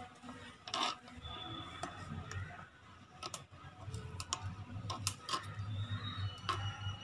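Small metal spoon stirring thick semolina kesari in a miniature clay pot, making light irregular clicks and scrapes against the pot.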